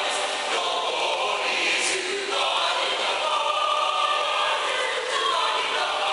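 Mixed choir of men's and women's voices singing in harmony, with sustained chords that change about two seconds in and again near five seconds.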